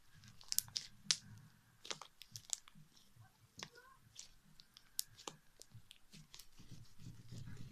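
Puffy slime being mixed and squished, giving irregular sharp crackles and pops with a soft squelching rustle underneath.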